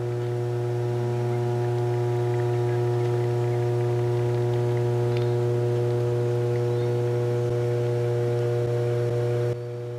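Steady electrical hum of a substation's power transformers: a deep mains buzz with a ladder of higher overtones, dropping a little softer near the end.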